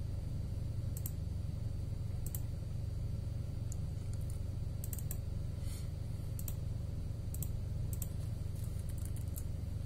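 Light clicks of a computer mouse and keyboard keys, scattered about once a second, over a steady low hum.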